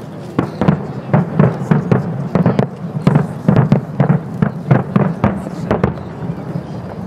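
Aerial fireworks shells bursting in quick succession, about four sharp booms a second for some six seconds, then stopping.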